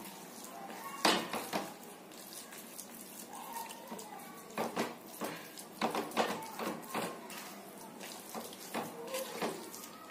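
Spatula stirring a thick mass of sweet vermicelli in a metal kadhai: soft scraping with scattered knocks of the spatula against the pan, clustered about a second in and again around the middle.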